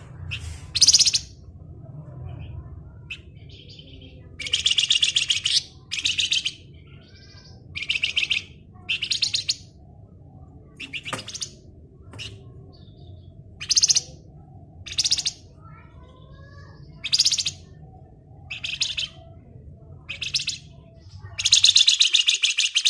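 Flamboyan songbird singing in its 'ngebren' style: short, dense rattling trills, each half a second to a second and a half long, repeated about a dozen times with brief pauses. A low steady hum runs underneath and stops near the end.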